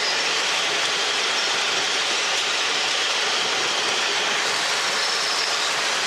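Steady cabin noise of a small helicopter in cruise flight: an even rushing of engine, rotor and airflow that holds level without rising or falling.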